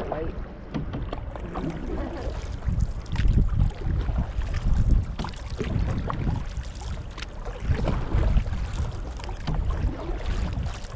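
Wind buffeting the microphone in uneven low gusts, over paddle strokes and water lapping at a canoe.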